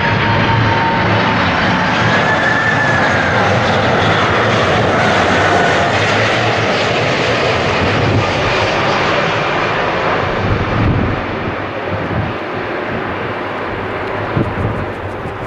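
The four turbofan engines of a Boeing 747-400 on landing approach: a loud, steady jet rumble and hiss with a whining tone that glides in pitch. It grows a little quieter in the last few seconds as the airliner passes toward the runway.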